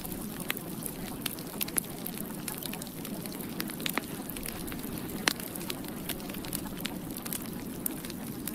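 Steady low noise dotted with irregular sharp crackles and pops, like a crackling fire, with one louder pop about five seconds in.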